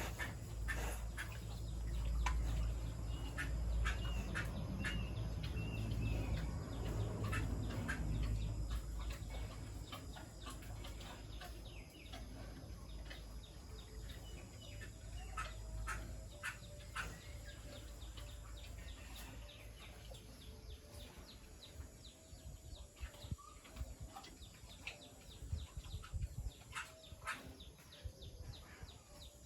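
Birds chirping in short repeated calls, over a low rumble that fades after about ten seconds, with scattered light clicks.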